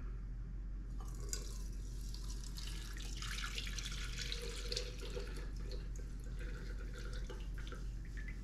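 Hot bacon grease poured from a pan through the mesh strainer of a grease container. It makes a steady trickle that starts about a second in, with small drips and ticks.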